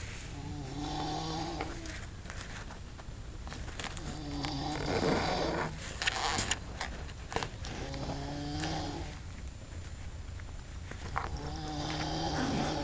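A young man in deep sleep snoring, four long rattling snores about every three and a half seconds, with a few short clicks between them.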